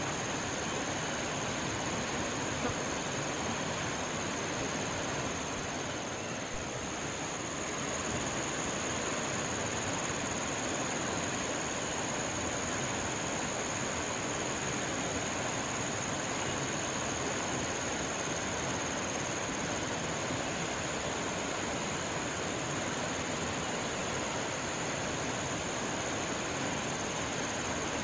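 Steady rush of a river running over rocks, with a steady high-pitched hum above it.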